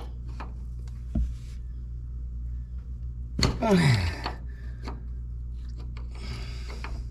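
Hand wrench working the top nut of a pickup's front shock absorber: scattered metal clicks and a thump about a second in, with a steady low hum underneath. About three and a half seconds in there is a short sound falling in pitch, and near the end a rasping scrape.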